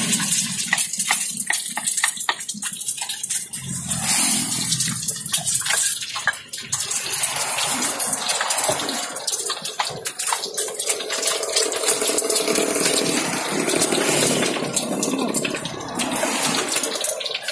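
Tofu deep-frying in a wok of hot oil: a continuous sizzling hiss with many sharp crackles and pops, busiest in the first half.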